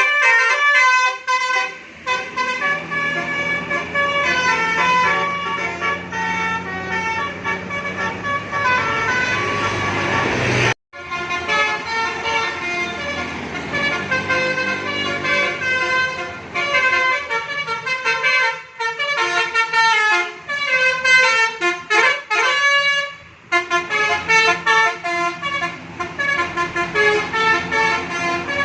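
Bus musical air horns (telolet/basuri) playing quick stepping tunes, with a bus engine running low underneath. The sound cuts off abruptly about eleven seconds in, then the horn tunes start again, with some sliding notes later on.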